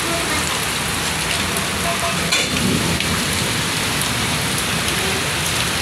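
Heavy rain pouring down, a dense, steady hiss of water hitting roofs and surfaces.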